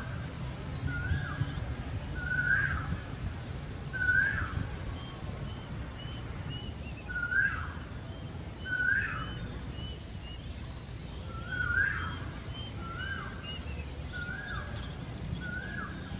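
A bird calling over and over: short whistled notes, each rising then dropping, about one every second or so, with fainter higher notes between them, over a steady low rumble.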